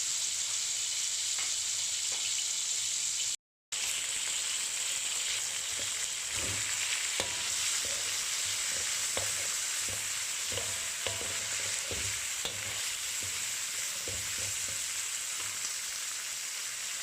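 Marinated boneless chicken pieces sizzling in a little cooking oil in a frying pan, a steady hiss that cuts out briefly once. From about six seconds in, a run of short knocks and scrapes of a utensil stirring the pan.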